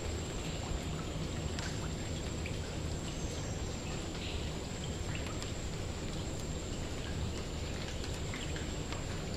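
Steady rain, a continuous patter with many scattered individual drops ticking.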